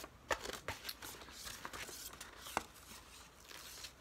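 Diamond painting canvas and its plastic protective film crinkling as they are handled, with a few sharp crackles, the loudest about a third of a second in and again about two and a half seconds in.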